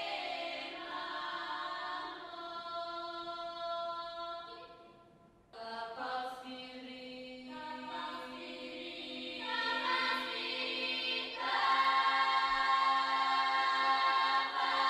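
Choral music of long held chords: it fades almost away about five seconds in, then a new chord comes in and swells louder near the end.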